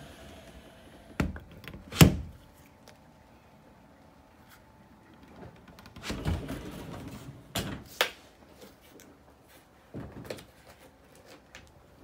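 Travel-trailer cabinet and closet doors being opened and shut by hand: a few sharp knocks, the loudest about two seconds in, a rubbing stretch with two more knocks around six to eight seconds in, and a last clatter near ten seconds.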